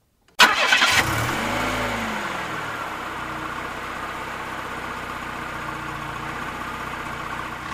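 Car engine started with the ignition key: a brief crank about half a second in, the revs flare up and drop back, then the engine settles to a steady idle.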